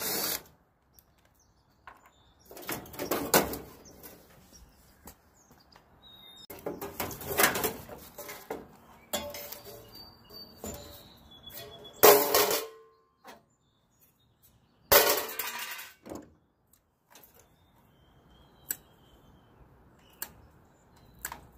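Cordless DeWalt drill-driver run in about six short bursts, backing out the sheet-metal screws that hold the AC condenser's top cover, with metal clatter as the panel comes free. A few sharp clicks near the end as wires are cut.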